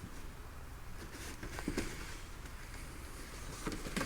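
Faint rustling and a few soft handling clicks as the flashy outer wrapper of a firework cake is pulled off.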